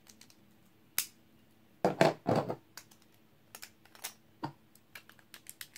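Plastic and metal spinning-top (Beyblade) parts clicking and clattering as they are handled and twisted apart by hand. There are sparse light clicks, a louder pair of knocks about two seconds in, and a run of small quick clicks in the second half.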